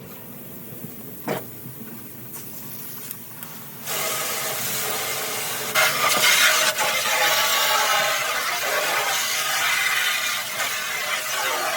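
A single knock about a second in, then water starts running hard with a steady spraying hiss about four seconds in, briefly louder a couple of seconds later: rinsing out a refrigerator part.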